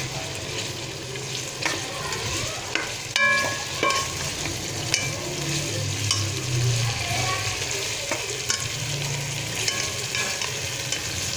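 Chicken pieces and fried onions sizzling in hot oil while a metal spoon stirs and scrapes the pot, with scattered light clicks. There is one sharper ringing clink of the spoon on the pot about three seconds in. The chicken is being browned (bhuna) until it changes colour.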